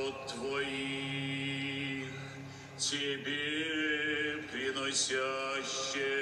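Russian Orthodox liturgical chant sung a cappella by a choir, long held notes with a new phrase beginning about three seconds in, heard through a laptop's small speaker.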